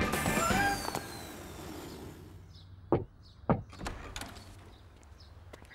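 A whooshing flight sound effect that fades out within the first second, then two loud knocks on a wooden front door about half a second apart, followed by a few fainter taps and clicks.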